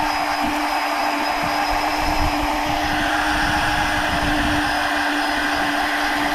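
Electric deep-drop fishing reel's motor whining steadily as it winds a fish up from deep water, with a higher whine joining about three seconds in. Wind buffets the microphone underneath.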